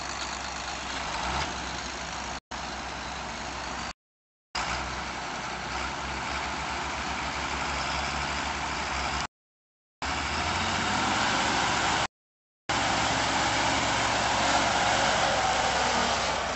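A large farm tractor's diesel engine running hard as the tractor, sunk to its axle in a muddy rut, strains to pull free. The engine noise breaks off abruptly several times in short silent gaps and is louder in the second half.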